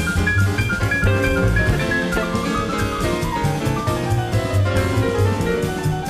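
Live jazz fusion band playing: a keyboard melody over a drum kit and bass. It is a cassette-tape recording of an FM radio broadcast.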